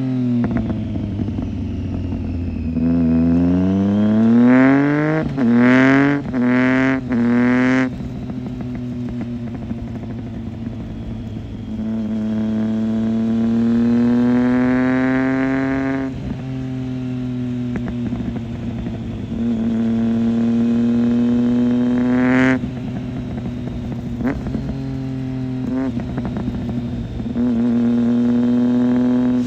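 2008 Triumph Street Triple 675's three-cylinder engine, through a Roadsitalia aftermarket exhaust with one of its two dB killers fitted. It is revved over and over: quick throttle blips, several revs held for a few seconds, each cut off sharply and dropping back to a steady idle between them.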